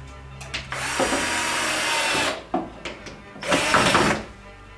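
Cordless drill-driver running with its bit against the wooden cabinet frame in two bursts: a long run of about a second and a half, then a shorter one about a second later.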